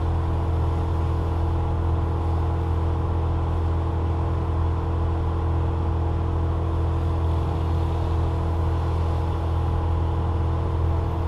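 An engine running steadily at a constant speed: a low, even hum that does not change.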